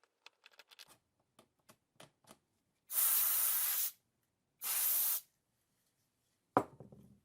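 Two sprays of alcohol cleaner onto a plastic body kit piece to clean it for gluing: a hiss of about a second, then a shorter one. Light clicks and handling noises come first, and a sharp knock near the end.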